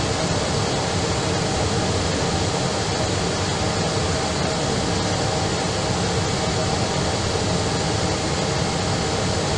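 Steady rumble and hiss of an Airbus airliner taxiing, heard from inside the aircraft.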